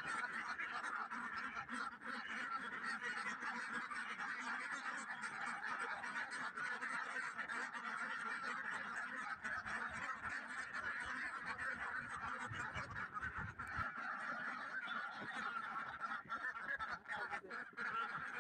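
A flock of ducks calling together, a steady overlapping chatter of quacks with no single call standing out.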